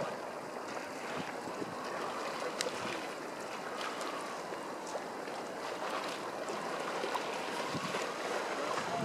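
Storm-surge river water running high and choppy, sloshing against a quay wall and a flooded railed platform. It makes a steady rush with occasional small splashes, and some wind underneath.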